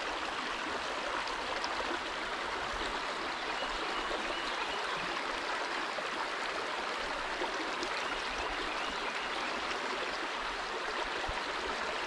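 Shallow creek water running steadily over rocks, an even, unbroken rush.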